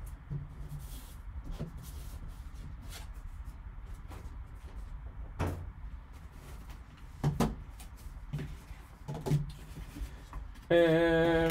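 Scattered light taps and clicks of a cardboard card box and its foam insert being handled by gloved hands, with one sharper tap about five seconds in.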